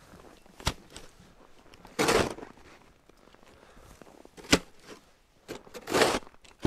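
Plastic snow shovel digging through deep snow: two rough scraping, scooping strokes, about 2 and 6 seconds in, and a few sharp knocks of the blade.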